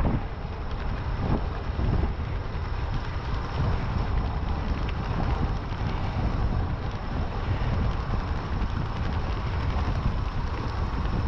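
Wind buffeting a GoPro's microphone on a moving e-bike: a steady low rushing rumble.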